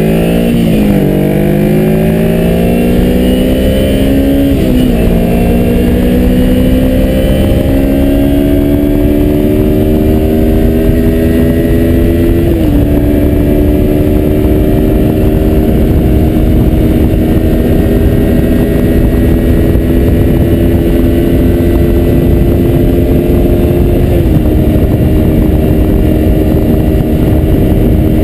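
A 2003 Kawasaki Ninja 250's parallel-twin engine accelerates and shifts up four times. Each upshift is a sudden drop in pitch, and the engine note climbs more slowly in each higher gear. Wind rushes over the microphone throughout.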